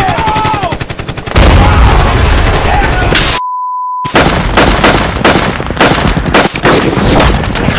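Rapid automatic gunfire with shouting over it, then about two seconds of a loud, dense burst of noise heavy in the low end. Just past three seconds in, a steady 1 kHz test-tone beep sounds alone for under a second, then gunfire resumes as a string of separate rapid shots.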